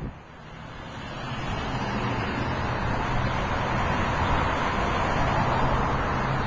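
Road traffic passing through a city intersection: a steady rush of tyre and engine noise from cars and trucks. It fades in at the start and builds over the first couple of seconds, with a low engine hum underneath.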